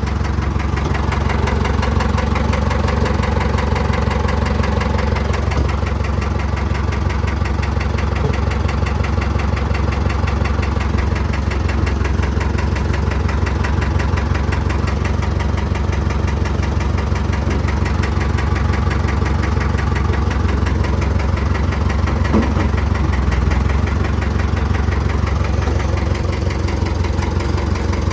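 An engine idling steadily for the whole stretch, a continuous low running sound made of rapid, even firing pulses.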